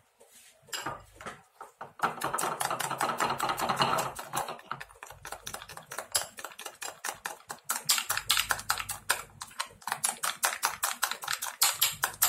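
Metal spoon beating an egg-and-flour batter in a small glass bowl: rapid, even clinking of the spoon against the glass, several strokes a second, starting about two seconds in.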